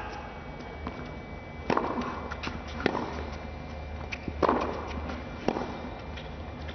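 Tennis rally: the ball struck back and forth by rackets, with sharp hits roughly every second to second and a half, the last one lighter.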